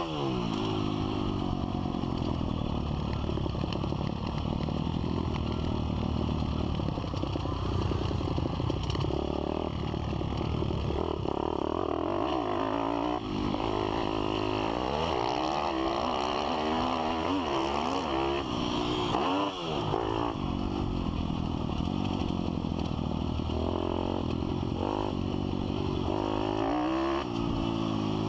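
Pit bike engine heard close up from on the bike, revving up and down repeatedly as it is ridden along a dirt track, with short throttle-offs about halfway through and again later.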